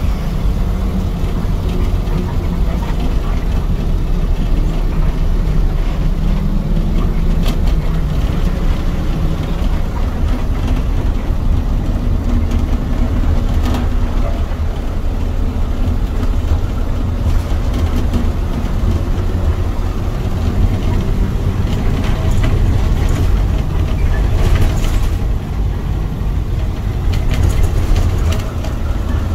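Shuttle bus on the move, heard from inside the cabin: a steady low rumble of engine and road noise with occasional light clicks.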